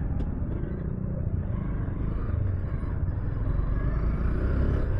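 Honda CB200X motorcycle's single-cylinder engine running at low revs in slow, stopped traffic, a steady low rumble.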